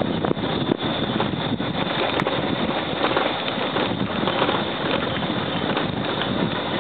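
Motorcycle riding over a rough, stony dirt road: steady engine-and-road noise with wind buffeting the microphone, and frequent small knocks and rattles as the bike jolts over the bumps.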